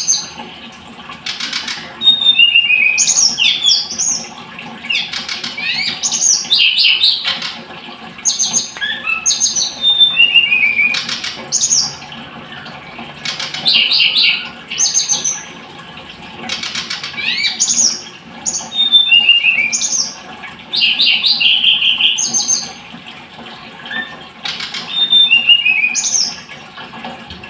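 Blood-breasted flowerpecker (tledekan gunung) singing: bursts of fast, high chirps and short trills, repeated every few seconds with brief pauses between them.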